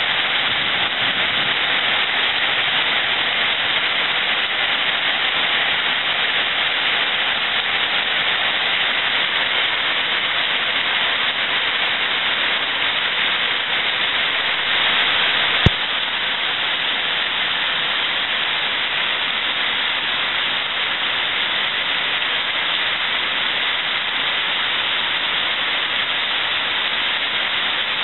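Heavy rain pouring down steadily in a dense, even hiss, with a single sharp click about halfway through.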